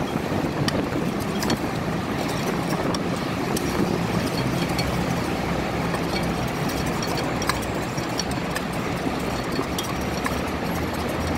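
Steady rumble of traffic on a busy road, with a few scattered light clicks and knocks.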